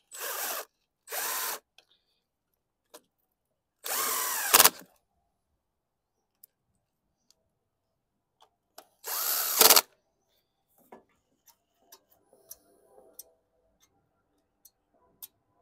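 Cordless DeWalt impact driver driving screws, in four short runs of its motor. The last two runs end in a brief, much louder burst as the screw seats. Faint clicks of handling follow.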